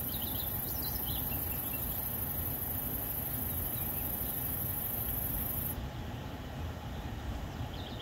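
Outdoor rural ambience: a steady low rumbling noise, with a few short bird chirps near the start and again near the end. A steady high-pitched hiss runs underneath and stops abruptly about two-thirds of the way through.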